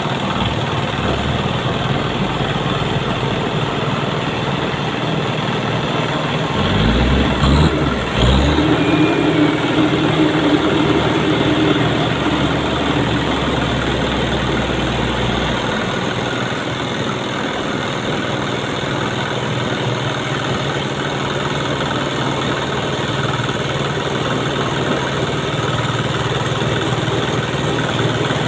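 Truck engine running steadily, revved harder for a few seconds about a quarter of the way in, then easing back to a steady run.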